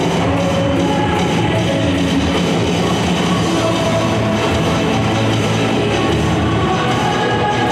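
Cheerleading routine music playing loud and steady, a dense mix with guitar and drums.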